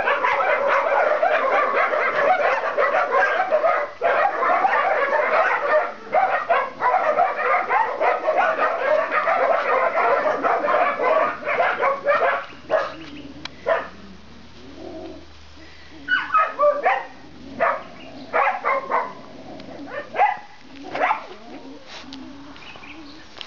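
Dogs barking: a dense, overlapping din of many barks for about the first half, then thinning to separate barks and yips with short pauses between them.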